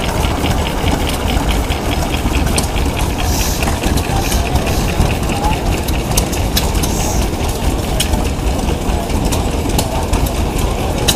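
Small stationary steam engines running off an upright boiler, their exhaust chuffing rapidly at about five beats a second, fading a few seconds in, over a steady low mechanical rumble.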